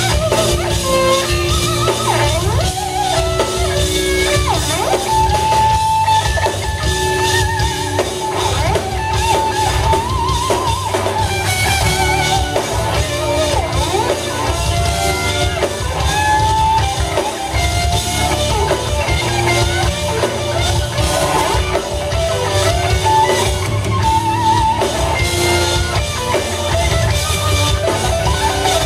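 Live instrumental rock trio playing: an electric guitar lead line with wavering, bent notes over bass guitar and drum kit.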